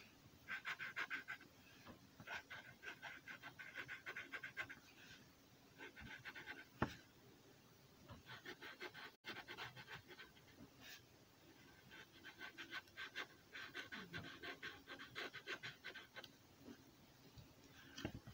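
Faint rapid scratching of a red Sharpie permanent marker's felt tip worked back and forth over paper, colouring in, in runs of a few seconds with short pauses between them. There is a single sharp tap about seven seconds in.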